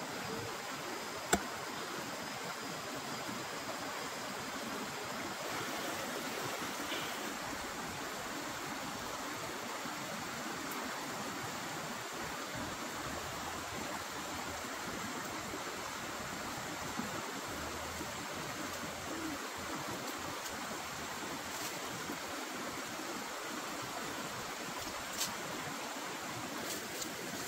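Shallow rocky stream rushing over stones, a steady, even rush of water. A sharp click about a second in and another near the end.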